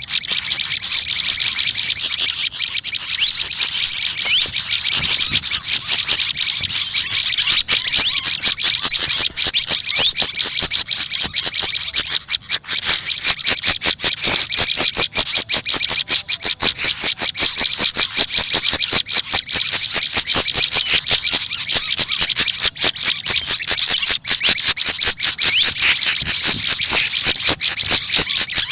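Small songbirds chattering in a continuous run of rapid, high chips, many per second, without a break.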